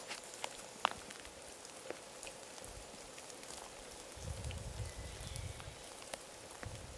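Rain falling, with scattered sharp drop clicks close by, the loudest just under a second in. From about four seconds in a low rumble joins it for a couple of seconds.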